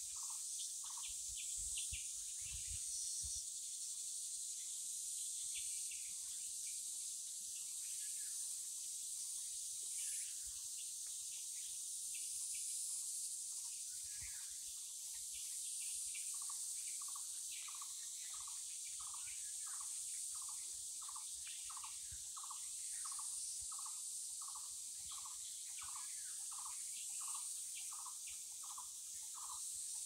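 Forest ambience: a steady high-pitched drone of crickets and other insects, with a bird repeating one short note about twice a second. The repeated note stops about a second in and comes back about halfway through, with scattered higher chirps from other birds.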